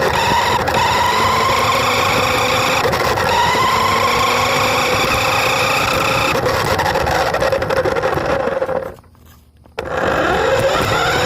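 Remote-control car's motor and drivetrain whining as it drives, its pitch rising and falling with speed. About nine seconds in it cuts out for under a second, then spins back up with a rising whine.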